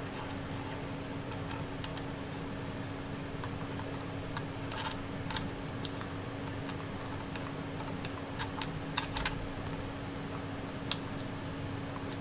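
Irregular small clicks and taps of a small hand tool and metal hardware against a 3D-printed plastic part while a nut is worked into its slot, with a quick run of clicks about nine seconds in. A steady low hum runs underneath.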